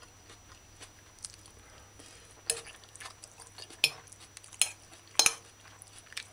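Metal fork scraping and clinking against a ceramic dinner plate, with a handful of sharp clinks from about two and a half seconds in.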